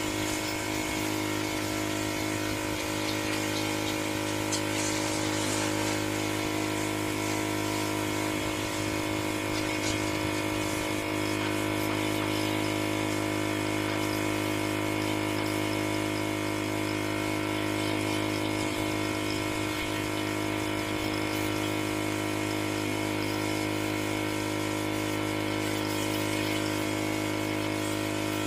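Pressure washer running steadily: a constant machine hum under the hiss of the water jet spraying.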